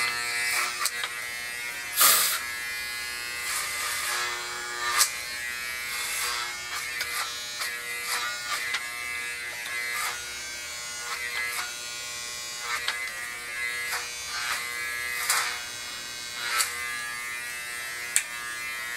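Corded electric hair clippers running with a steady buzz while cutting hair close to the scalp, with brief louder moments every few seconds as the blades pass through the hair.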